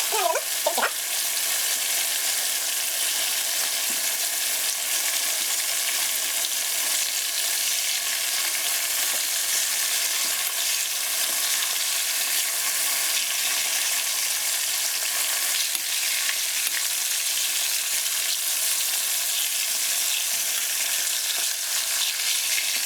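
Whole ripe Robusta bananas, skins on, sizzling steadily as they deep-fry in hot oil.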